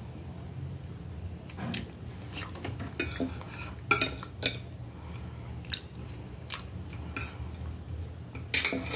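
Metal knife and fork scraping and clinking against a plate while cutting food: a series of short sharp clinks, the strongest about three and four seconds in and near the end.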